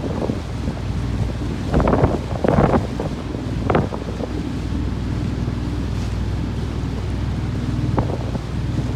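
Wind buffeting the microphone on a moving boat, over the steady low drone of the boat's engine and rushing water. Louder gusts or splashes come about two seconds in, just before four seconds, and again near the end.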